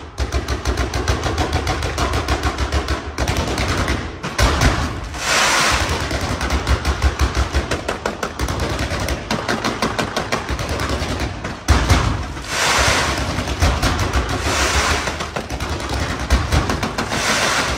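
Aerial fireworks display: rapid, near-continuous volleys of bangs and crackles from shells and comets, like machine-gun fire. Several times a longer rush of hiss rises over the bangs as new salvos go up.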